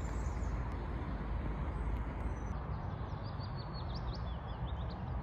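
Steady low outdoor background rumble, with a small bird giving a run of quick high chirps from about halfway through.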